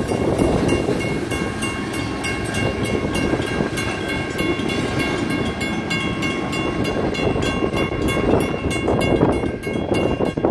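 Two WCH mechanical crossing bells ringing with a fast, even strike over the rumble and clatter of freight cars rolling past. The last cars, a tank car and covered hoppers, clear the crossing near the end.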